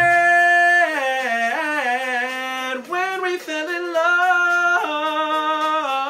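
A man singing unaccompanied, an ad-lib without clear words: long held notes and runs that slide up and down in pitch, with a short break about three seconds in.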